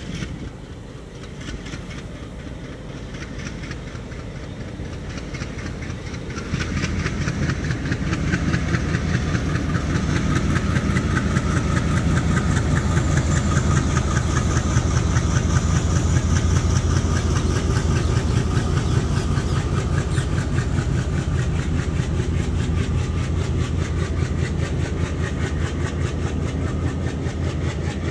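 Passenger train coaches rolling past at low speed, the wheels rumbling and clattering on the rails in quick, continuous clicks. The sound grows noticeably louder about six seconds in and stays loud.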